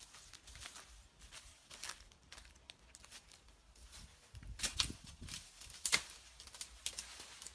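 Hooked chopping blade hacking at branches and brush, with rustling leaves and twigs. There are a few sharp cracks of the blade striking wood, loudest in the second half.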